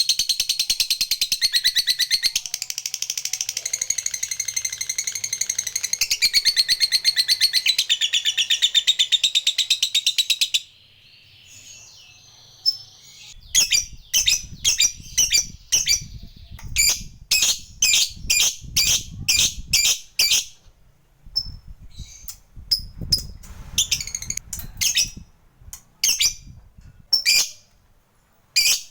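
Lovebird giving a long, rapid, unbroken chattering trill, the 'ngekek panjang' that fanciers prize, for about ten seconds before it stops abruptly. After a short pause the bird gives separate sharp chirps, several a second, in short runs.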